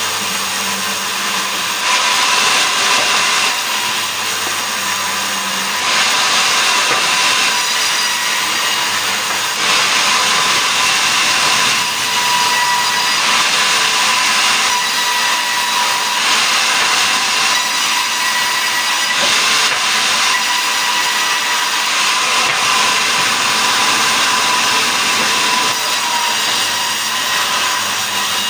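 Sawmill saw running steadily and cutting mahogany into boards: a loud, continuous sawing hiss with a faint steady whine, its tone shifting every few seconds.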